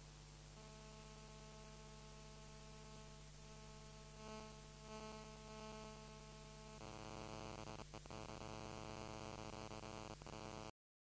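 Faint, steady electrical mains hum and buzz over a light hiss, growing a little louder about seven seconds in and cutting off abruptly shortly before the end.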